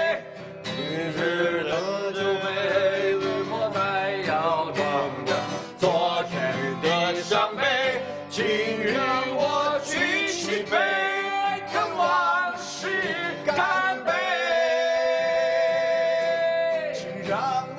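A man singing a slow ballad to guitar accompaniment, holding one long note near the end.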